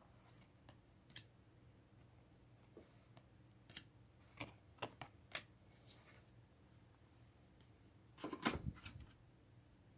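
Baseball trading cards being handled on a wooden desk, faint: a few light clicks and flicks as cards are shuffled through the stack, then a louder short cluster of knocks and rustles near the end.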